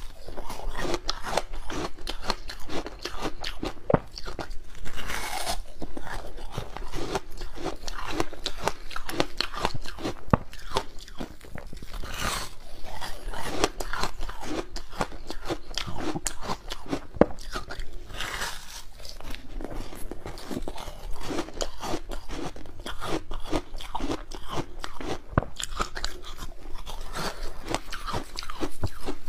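Bites of a frozen block of passion-fruit ice being crunched and chewed, with dense crackling all the way through and a few louder crunches of fresh bites.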